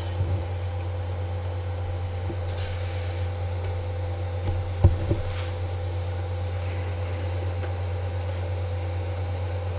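Steady low electrical hum with faint steady tones and light hiss, broken once by a short soft knock about five seconds in.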